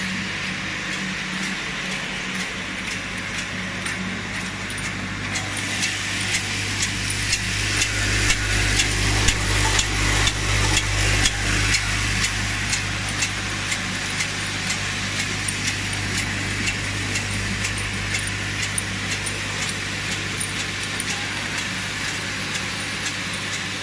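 Vial filling and capping machine running: a steady low hum with a regular clicking and clinking of glass vials and capping parts, about two to three clicks a second. The clicking is loudest in the middle stretch.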